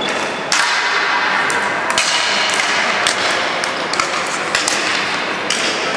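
Ball hockey sticks clacking against the hard plastic ball and the rink floor: a string of sharp knocks, roughly one every half second, over steady background noise.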